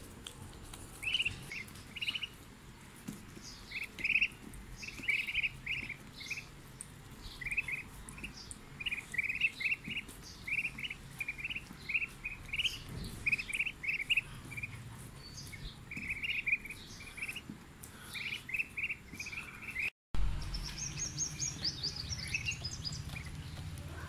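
Muscovy ducklings peeping in many short, rapid calls. After a cut about 20 seconds in, the peeps come higher over a steady low hum.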